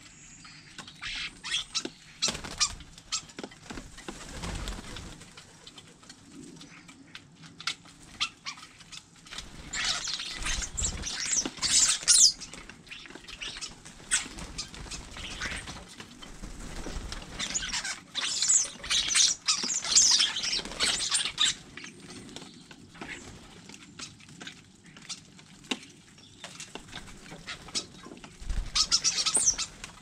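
European starlings squabbling at hanging feeders: wing flutters and sharp clicks of feet and beaks on the feeders, with three louder bursts of harsh, high chatter about ten seconds in, around twenty seconds in and near the end.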